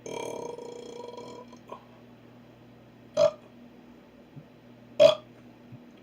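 Deliberate burping on command: one long, pitched burp lasting about a second and a half, then two short, abrupt burps about two seconds apart, the second the loudest.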